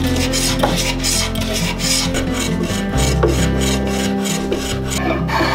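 Rapid back-and-forth rasping strokes of a hand tool smoothing the dovetailed corner of a poplar toolbox, about four or five strokes a second, stopping near the end. Acoustic guitar music plays underneath.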